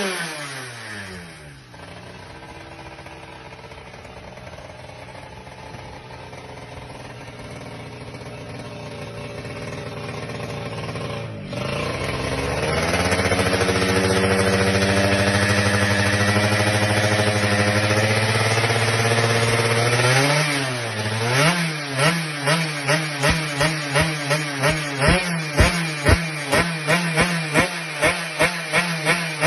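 Yamaha F1ZR's two-stroke single-cylinder engine. Its revs drop to a steady idle, then it runs at a higher steady speed. About two-thirds of the way in, the throttle is blipped again and again, about twice a second, in short rising revs.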